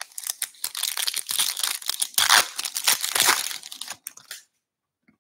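Foil wrapper of a 2023 Bowman Baseball hobby pack being torn open and crinkled, a dense crackling that stops about four and a half seconds in.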